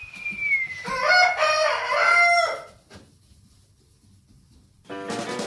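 A rooster crowing once, a call of about three seconds that opens on a thin high note rising and falling, then turns into a fuller crow that stops abruptly. Music starts near the end.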